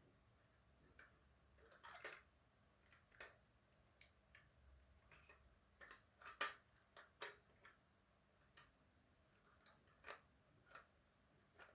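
Faint, irregular clicks and light taps of small hard parts being handled, about fifteen of them at uneven spacing, the loudest a little past the middle.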